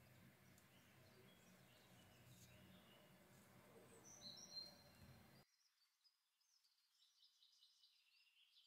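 Near silence: faint room tone with a few faint high chirps. The low hum cuts out abruptly about five seconds in.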